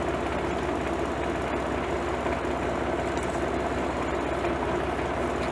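Older tractor's engine running steadily while its hydraulic three-point hitch lifts the lower arms.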